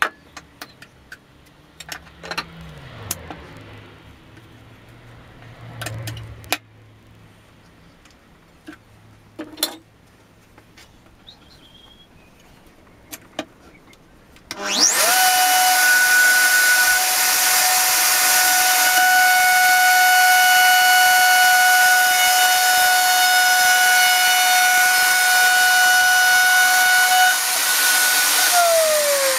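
A few quiet clicks and knocks, then about halfway through an electric router is switched on and runs at a steady high whine. Near the end it is switched off and its pitch falls as the motor spins down.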